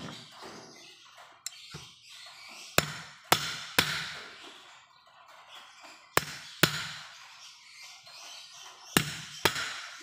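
Sharp metallic knocks, about seven in groups of two and three with a short ring after each, as a screwdriver is worked into the leather cup of a hand-pump plunger. Faint scraping and handling in between.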